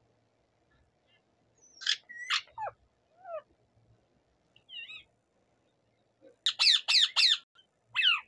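Caged rose-ringed parakeet calling. There are a few short calls and falling whistles in the first half, then a quick run of about five loud, sharp calls, and one more at the end.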